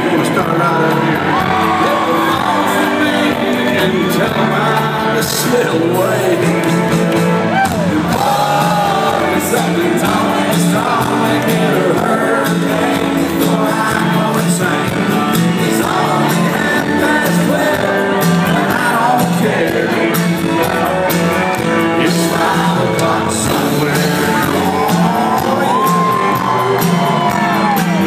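Live country music from a concert band with a singer, and crowd shouts and whoops over it.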